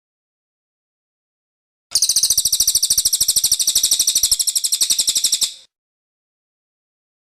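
A cililin bird singing one rapid, even trill of high, fast-repeated notes, starting about two seconds in and lasting about three and a half seconds, with silence before and after.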